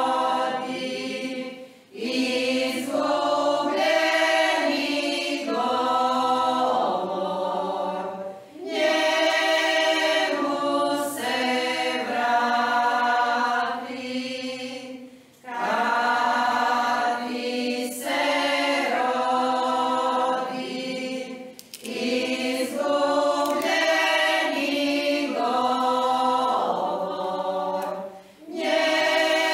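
Women's folk choir singing a church hymn a cappella in the Croatian traditional church folk-singing style, in phrases of about six or seven seconds, each followed by a brief break for breath.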